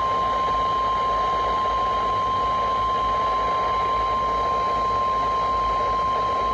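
NOAA Weather Radio 1050 Hz warning alarm tone received over the air: one steady, loud, high tone over a hiss of radio static. It signals that an emergency warning message is about to be broadcast.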